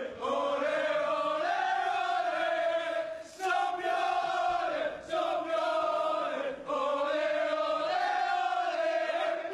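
A group of footballers chanting a celebration song in unison, the same short phrase repeated about every second and a half.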